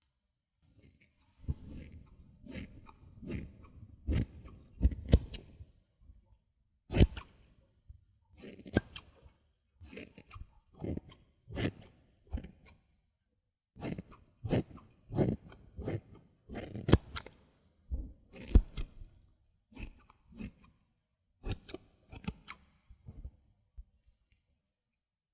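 Hairdressing scissors snipping close to the microphone, in quick runs of crisp snips broken by short pauses, as in a binaural ASMR haircut.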